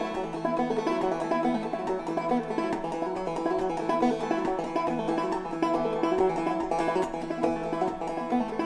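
Instrumental old-time string music led by a fast-picked banjo, with no singing.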